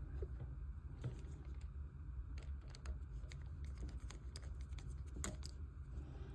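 Small, irregular clicks and ticks of screws being tightened with a hand screwdriver into the frame of a model kit.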